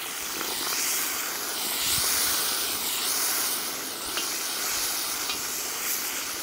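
Beef pieces sizzling and hissing in hot oil in a cast-iron kazan over high heat, the hiss rising as they are turned; the meat is still giving off its juice, which boils off as steam. A few light clinks of the metal skimmer against the pot.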